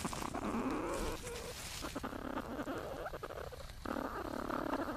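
Platypus scuffling and rustling through nest material inside its nesting burrow, heard through a small microphone in the burrow, with scattered clicks and a few low sliding sounds among the rustling.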